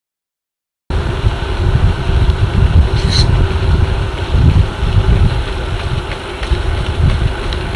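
The sound of someone running at marathon pace: a loud, continuous low rumble of wind and movement on the microphone, starting abruptly about a second in. A short high tone comes about three seconds in.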